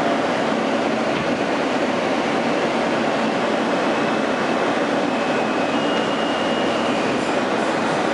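R160A subway car running on elevated track, heard from inside the car: a steady, even rumble of wheels and running gear. A faint high whine rises over it for a few seconds around the middle.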